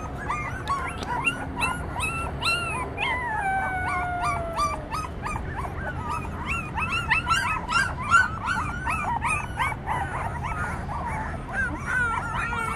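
A litter of three-week-old puppies yipping and whimpering: many short high yelps, several a second and overlapping, with a long falling whine about three seconds in and another near the end.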